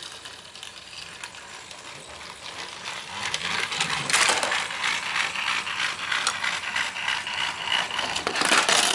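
Battery-powered TrackMaster Thomas toy engine's small motor and gears running on plastic track: a rapid ratcheting clatter that grows louder about three and a half seconds in as the engine climbs into the volcano section, with a thin whine near the end.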